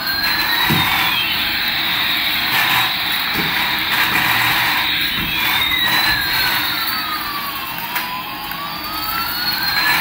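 Battery-powered light-up toy Airbus A380 playing its electronic jet-engine sound effect: a steady hiss with a whistling tone that slowly falls and rises again over several seconds.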